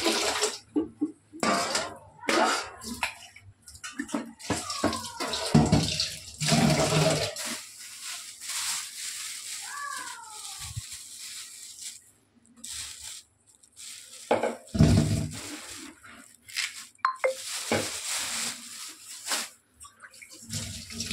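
Kitchen tap water running into a stainless steel sink and a metal bowl, coming in spells with splashing as vegetables are rinsed, with occasional knocks.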